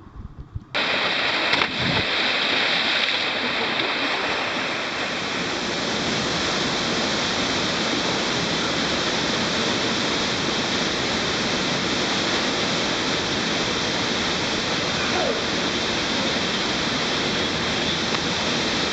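Steady rush of white water in a mountain torrent tumbling over rocks, starting suddenly just under a second in.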